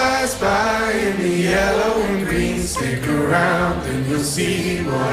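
Background music with voices singing together.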